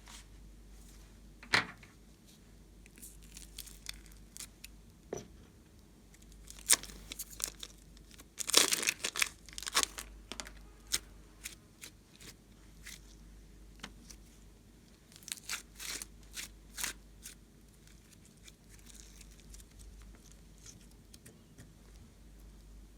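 Slime being worked by hand, with scattered sharp crackles and pops and two denser runs of crackling, one about nine seconds in and another around sixteen seconds.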